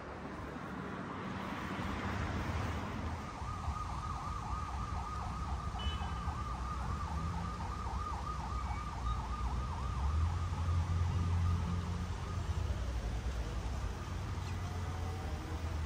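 A distant emergency-vehicle siren with a fast warble, starting about three seconds in and fading out near the end, over the steady low rumble of city traffic.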